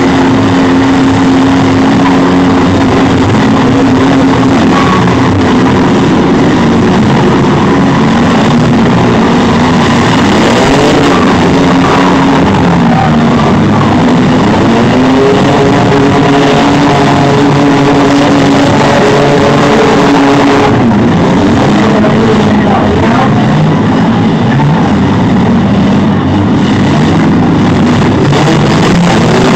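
Several demolition derby mini-van, truck and SUV engines running hard at once, their pitches holding, then rising and falling as the drivers rev and back off. The sound is loud and continuous.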